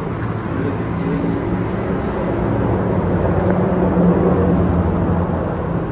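A vehicle engine running with a steady low hum, growing louder to about four seconds in and then easing off.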